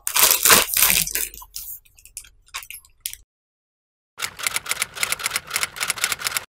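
Rustling and clatter that fade out, then after a break a typewriter-style key-clicking sound effect, about six quick clicks a second.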